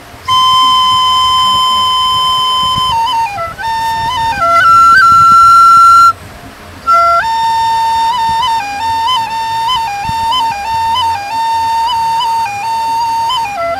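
A solo flute playing a slow melody. It holds one long note, then a higher held note, breaks off briefly about six seconds in, and goes on with held notes decorated by quick grace-note flicks.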